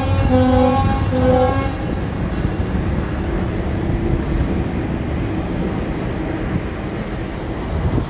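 An MP54AC locomotive's horn sounds two short blasts of a chord, ending about two seconds in. After that comes the steady rumble of GO Transit bilevel passenger coaches rolling along the track.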